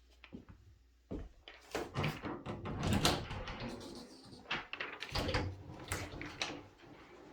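An interior door being handled: a run of clunks, knocks and rattles starting about a second in, with rustling in between.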